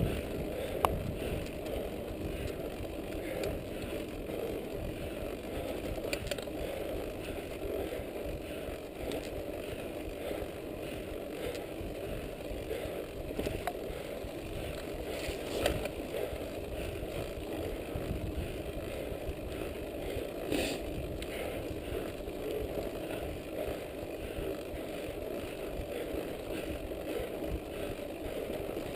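Mountain bike rolling along a dirt track: a steady rumble of the tyres on the ground and the bike rattling, with a few sharp clicks.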